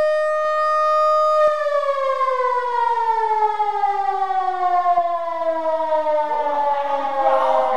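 Lion King LK-JDW 245 electric motor siren (a 750 W single-tone civil-defence siren) sounding its steady wail near 580 Hz. About a second and a half in, the tone starts falling in pitch steadily as the rotor winds down, turning rougher near the end.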